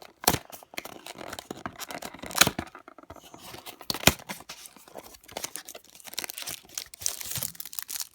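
Packaging of a hanger box of baseball trading cards being torn open: irregular ripping and crinkling, with a few sharp snaps, the loudest about two and a half and four seconds in.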